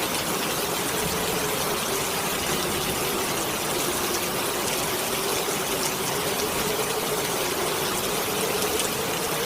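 Heavy rain with wind howling over it: a steady dense hiss of rain and a single low whistling howl that wavers slowly in pitch.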